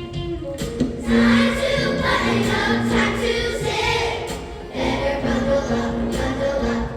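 A choir singing, many voices together on a sustained song.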